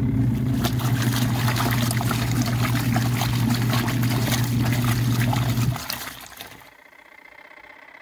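Wash motor of a KUPPET twin-tub mini washing machine humming as the agitator churns soapy water and clothes, with steady sloshing and splashing. The motor cuts off about six seconds in and the tub goes quiet: the pause in the wash timer's alternating cycle before the agitator turns again.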